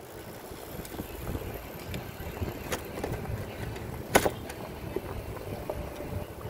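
Bicycle rolling along a paved path: a low rumble with scattered rattling clicks and one sharp click a little past the middle.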